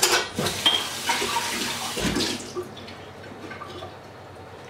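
Water running from a kitchen tap for about two and a half seconds, then stopping.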